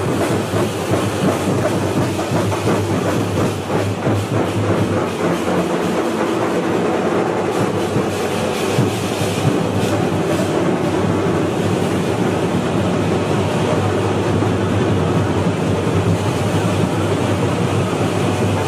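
Loud, unbroken din of a packed festival street procession: crowd noise over a fast, dense stream of beats that keeps going without a break.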